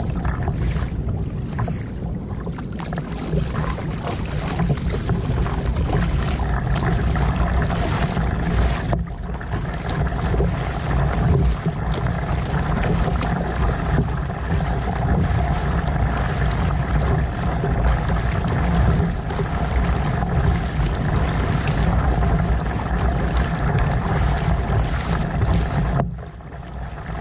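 Double-bladed kayak paddle dipping and splashing into the sea in repeated strokes, over a heavy low rumble of wind on the microphone. The sound drops off briefly near the end.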